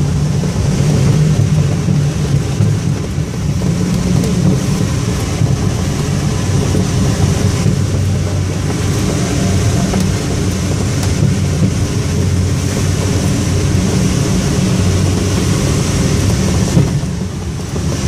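Steady rush of airflow over a glider's canopy in flight, buffeting the microphone, dipping briefly near the end.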